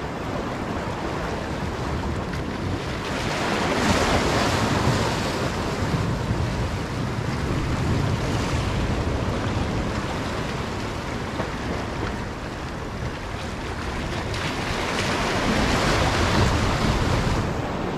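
Waves washing against rocks, with wind buffeting the microphone as a low rumble. The wash swells louder twice, about four seconds in and again near the end.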